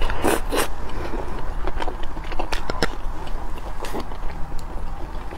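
Close-miked eating: a person shovelling rice into the mouth from a bowl with chopsticks and chewing, with a cluster of loud mouth noises in the first half-second and scattered small clicks after, over a steady low hum.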